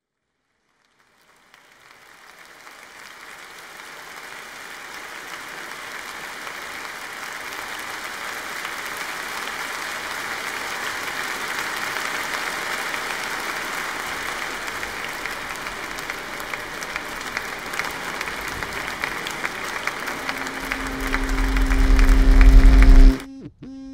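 Large audience applauding, fading up from silence and holding steady. In the last few seconds a low droning tone with a deep rumble swells up under it, becomes the loudest sound, and cuts off suddenly.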